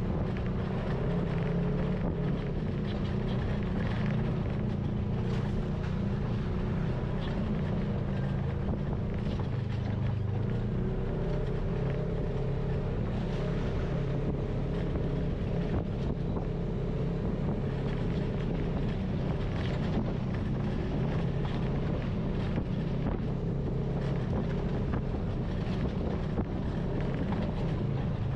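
Polaris RZR side-by-side's engine running steadily as it drives along a dirt trail, with wind buffeting the microphone and scattered small knocks from the tyres on the ground.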